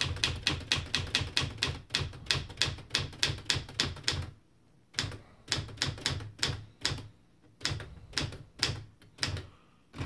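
Keys of a freshly serviced late-1960s Smith Corona Standard manual typewriter being typed, the typebars striking the platen in quick clacks, about five a second. After a brief pause about four seconds in, the typing goes on with slower, more spaced-out strokes.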